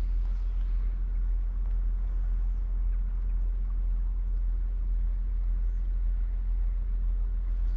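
Steady low rumble of flowing creek water, unchanging throughout, with a few faint ticks.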